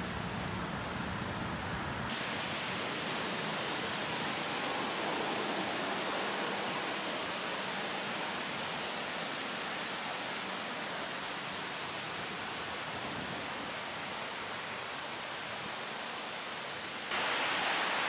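Steady wind noise, changing abruptly about two seconds in and again near the end as the recording cuts between shots; after the last cut it is louder and hissier.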